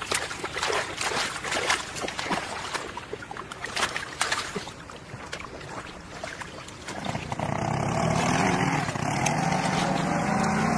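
Splashing and slapping in shallow muddy water as bare hands grab at a fish, with many short sharp splashes. About seven seconds in, a louder, steady rough noise with a low hum joins and carries on.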